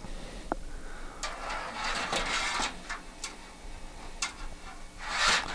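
Handling noise: scattered light clicks and taps and some rustling as a plastic case dust filter is lifted away and a power supply unit with its bundled cables is moved about. There is a louder patch of rustling near the end.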